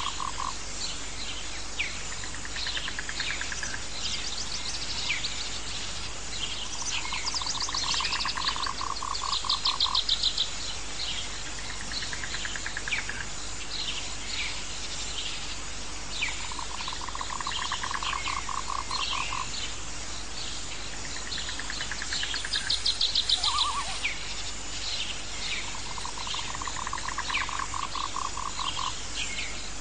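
Outdoor nature ambience of calling animals: a pulsed trill, about three seconds long, comes back roughly every nine seconds among many short high chirps and trills, over a steady hiss.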